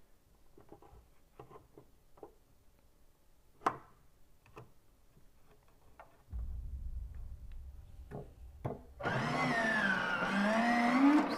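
Light plastic clicks and handling, then a low hum about six seconds in, and about nine seconds in the Hover Pram replica's door motor whines loudly as the domed lid opens, its pitch sagging and climbing. The owner takes the uneven motor to mean the door is binding a little.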